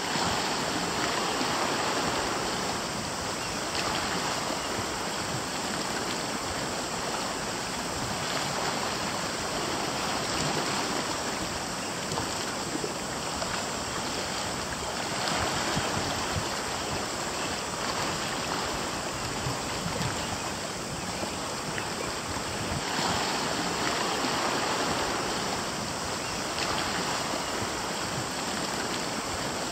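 Sea water washing against a rocky shore, a steady rushing that swells and eases every few seconds.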